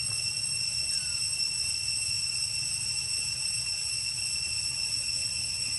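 Steady, unbroken high-pitched drone of insects, a whine held at one pitch, over a low rumble.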